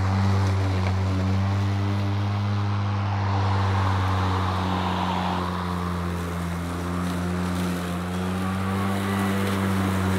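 EGO 56V Select Cut cordless lawn mower, its electric motor and multi-blade deck running at a steady whir while cutting grass as it is pushed.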